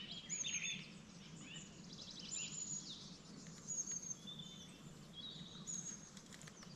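Quiet birdsong from several birds: short high whistled phrases, trills and down-sweeping notes overlapping, with one high phrase recurring every second or two.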